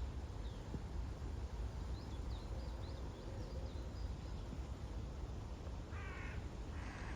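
A crow cawing twice near the end, harsh calls with a rasping pitch. Before it come faint, quick high chirps of small birds, over a steady low rumble.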